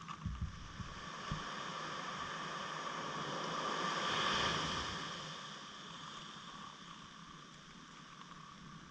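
A steady motor hum with a few held tones over a noisy hiss, swelling to its loudest about four seconds in and then fading away. A few low thumps come in the first second or so.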